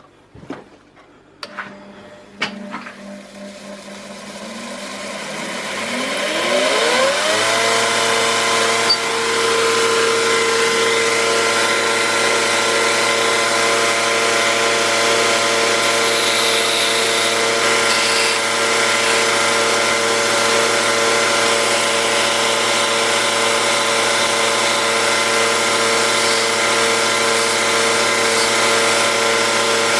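Electric grinder switched on: the motor spins up over about four seconds, its pitch rising, and then runs steadily at full speed. A few clicks come just before it starts.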